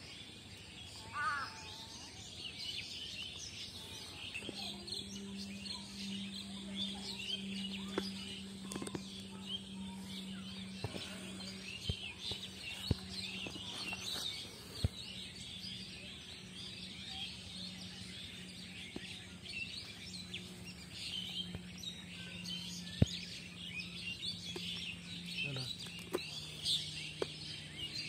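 Small birds chirping in a dense, continuous chorus. A steady low hum joins about four seconds in, and a few sharp clicks sound now and then, the loudest one near the end.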